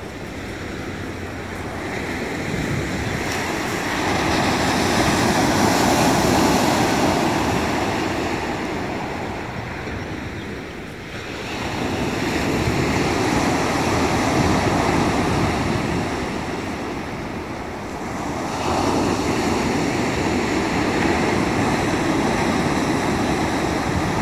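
Sea waves breaking and washing up a pebble beach, rising and falling in three long surges.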